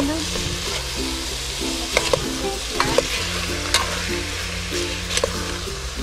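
Chicken pieces and diced pineapple sizzling in a metal pot as a metal spoon stirs them, the spoon clicking against the pot several times.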